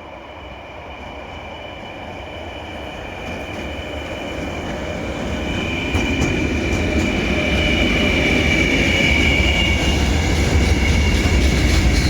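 Electric locomotive-hauled train approaching, growing steadily louder, with a steady high squeal from the wheels on the rails and wheel clicks over the rail joints starting about halfway through.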